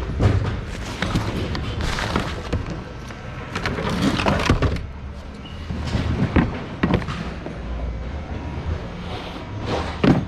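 Goods being rummaged through and shifted in a large thrift-outlet bin: irregular knocks, thumps and clatter over a low background rumble.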